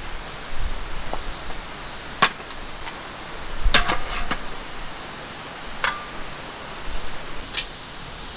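Camping gear being handled and set down: a handful of sharp clicks and knocks, about five in all, one of them a short clattering cluster midway, over a faint steady hiss.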